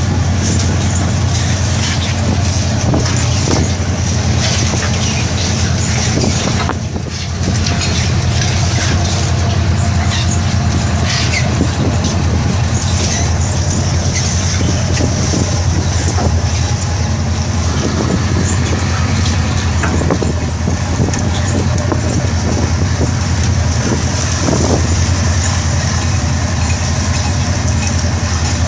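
Automatic squid-jigging machines running on a squid fishing vessel, their reels hauling the lines with a constant clatter as squid and water drop onto the deck. Under it is a steady low drone of the vessel's machinery.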